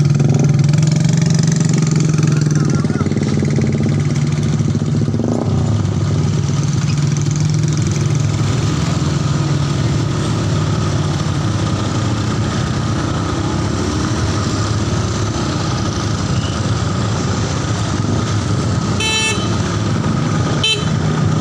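Road traffic: a heavy vehicle engine running steadily with motorcycle engines around it, and a short horn toot near the end.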